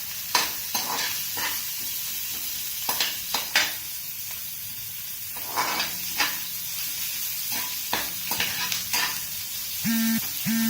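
Onions frying in oil in a pan with a steady sizzle, stirred with a spatula that scrapes and knocks against the pan at irregular intervals. Two short low tones sound near the end.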